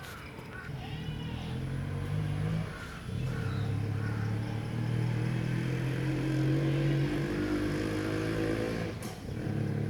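An engine running steadily, its sound dropping away briefly about three seconds in and again near the end, as at a change of gear or throttle.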